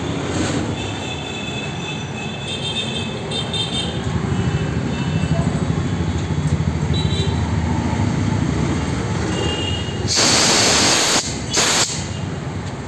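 Relief belt-driven air compressor with a 3 HP single-phase Crompton Greaves motor running with a steady mechanical rumble. About ten seconds in, compressed air blasts from the tank's bottom ball valve in a loud hiss lasting about a second, then again in a short burst.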